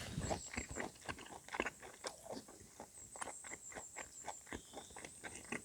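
A person chewing a mouthful of grilled pork jowl close to the microphone: a run of small, irregular clicks and crunches.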